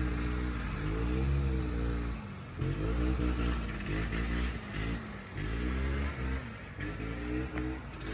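Snowmobile two-stroke engine revving in repeated surges, its pitch rising and falling about four times.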